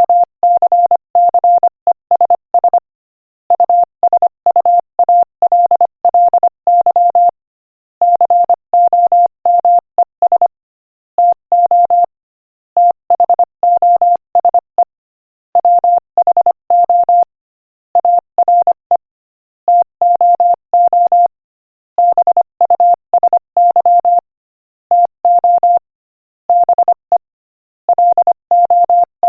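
Morse code at 25 words per minute: a single steady beep keyed rapidly into dots and dashes, with short silent gaps between words, spelling out an inspirational quotation.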